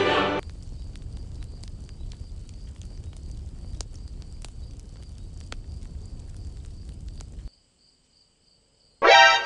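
A choir "aah" music sting fades out at the start. Then comes steady forest ambience: insects chirping with a thin high trill over a low rumble and a few faint ticks. It cuts to silence for about a second and a half, and a brief loud pitched sound comes right at the end.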